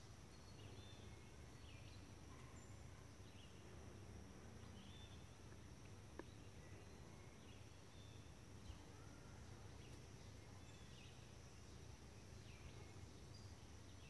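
Faint summer woodland ambience: insects keeping up a steady high-pitched drone, with short chirps every second or two. Two small clicks come about six and nine seconds in.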